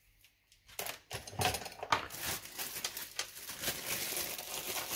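Small plastic parts bag crinkling and rustling in the hands, with small clicks, starting about a second in.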